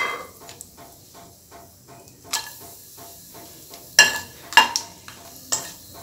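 Whole spices (bay leaves, cardamom, cinnamon) sizzling in oil and ghee in a non-stick wok, being fried to release their flavour. A metal spatula clicks and scrapes against the pan several times, loudest about four seconds in.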